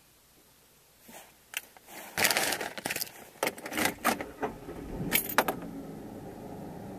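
Keys jangling, with a quick run of clicks, knocks and rattles inside a vehicle. A steady low hum comes in about two seconds in and carries on after the clatter stops.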